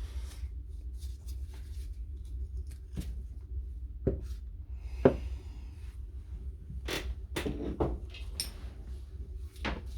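Scattered short clicks and light knocks of impact wrench parts being handled during disassembly, about half a dozen, the sharpest about halfway through, over a steady low hum.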